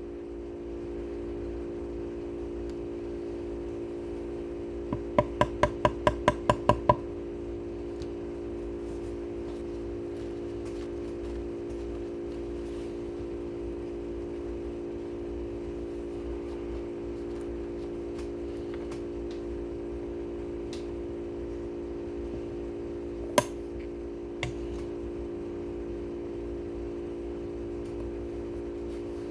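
A steady electrical hum with several tones runs throughout. About five seconds in, a quick run of about nine light taps follows, consistent with a hardwood dowel rod being tapped into a guitar bridge mounting hole. One sharp click comes near the end.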